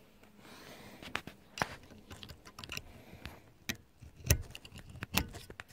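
Irregular sharp clicks and knocks of small plastic and metal parts being handled in a truck's plastic overhead dome-light housing as an LED board and its wired spring-contact adapter are fitted. The loudest knocks come a little after four seconds and again around five seconds.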